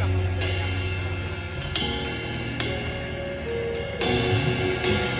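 Live band playing at a sound check: a few cymbal crashes on the drum kit ring out over long held bass notes, without a steady drum beat.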